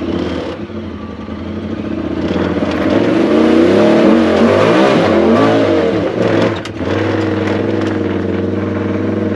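Side-by-side UTV engine running, its revs rising and falling for a few seconds in the middle. The revs dip briefly, then settle to a steady pull near the end.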